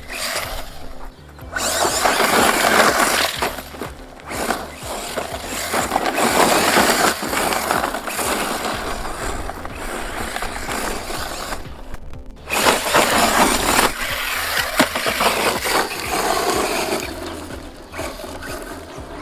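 ZD Racing BX-8E electric RC buggy driving hard over loose dirt and gravel, its tyres crunching and throwing up grit. It comes in several surges with short breaks, and the sound drops out abruptly a few times.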